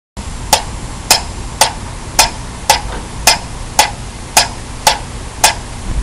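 Wooden pyramid mechanical metronome ticking at a steady tempo, about two ticks a second, ten ticks in all, over a steady background hiss.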